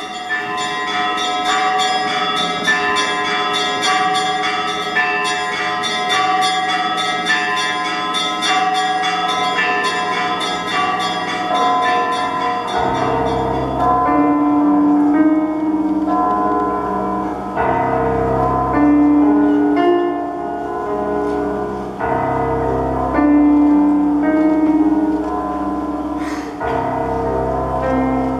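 Instrumental intro of a song about bells: a peal of many ringing bells in a quick, rhythmic pattern. About halfway through, deep bass notes and sustained backing music come in underneath.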